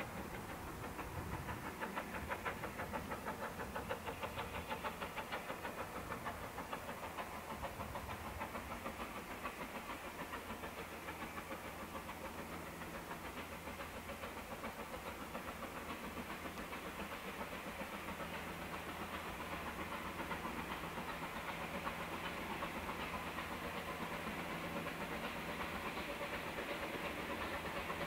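Steam locomotive 34072 '257 Squadron', a three-cylinder Bulleid Battle of Britain class light Pacific, heard working under steam in the distance. Its exhaust makes a rapid, steady chuffing that grows slightly louder near the end as it approaches.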